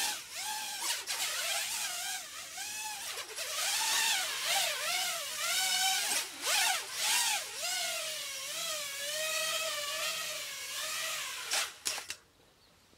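Racing miniquad's brushless motors and propellers whining in flight, the pitch rising and falling as the throttle changes. The whine cuts off about twelve seconds in as the quad lands and the motors stop.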